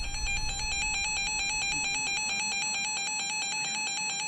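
EAS attention signal from a weather alert radio: a steady, shrill electronic alert tone that warbles evenly without a break. It announces an incoming warning.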